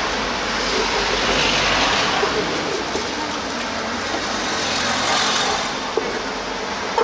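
Steady rushing background noise, with a soft knife tap on a wooden cutting board as sundae is sliced, about six seconds in.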